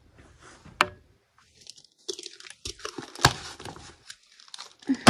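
Faint, scattered crunches and sharp clicks from a juvenile bearded dragon chewing crickets, the sharpest click about three seconds in.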